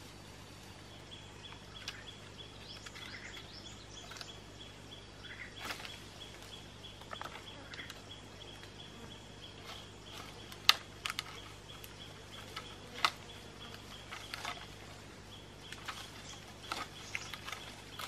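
A long bamboo pole poking up through leafy tree branches to knock down fruit: scattered rustling of leaves and twigs and a few sharp knocks, the two loudest about two-thirds of the way in. A steady high-pitched whine runs underneath.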